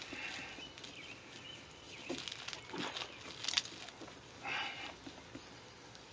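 Wet 600-grit sandpaper on a foam sponge scrubbing over a plastic headlight lens: an uneven, scratchy rubbing with a few sharper strokes and a louder stroke about four and a half seconds in. The sanding is starting to get a little quieter as the slimy, pitted oxidation comes off and the lens smooths out.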